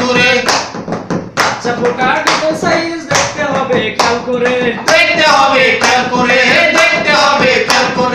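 Men singing a Bengali song together, with sharp hand claps keeping a steady beat about twice a second.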